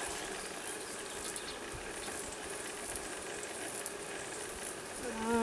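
Honey bees humming steadily around an open hive. Near the end a single bee buzzes loudly for under a second, close by.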